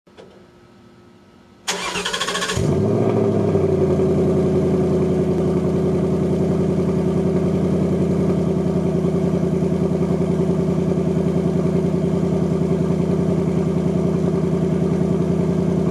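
2021 Ford Mustang GT's 5.0-litre V8 starting about two seconds in. It catches with a brief loud burst, then settles into a steady idle.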